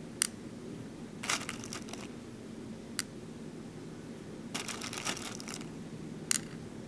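Small plastic beads rattling as fingers pick through them in a plastic sorting tray, twice, and three sharp single clicks of beads being set down on a plastic pegboard template.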